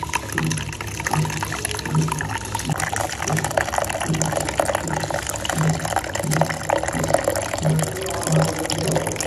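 Water running from a water dispenser's tap into a bowl, splashing steadily as the bowl fills.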